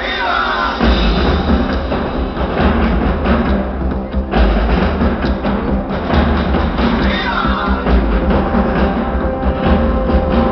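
Loud, percussion-heavy music soundtrack of a light-and-sound show, with a swooping sound effect just after the start and again about seven seconds in.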